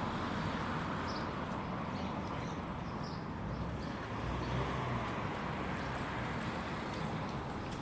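Steady outdoor background hum of distant road traffic, with a few faint short high chirps.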